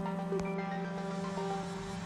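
Background music of held electronic notes without a beat.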